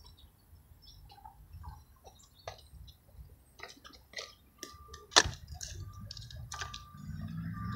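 Scattered light clicks and taps, with one sharp knock about five seconds in, and a low rumble building near the end.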